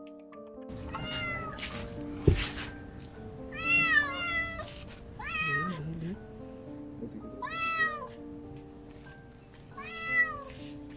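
A kitten's repeated high-pitched distress meows, about five, roughly every two seconds, over background music. A sharp knock about two seconds in.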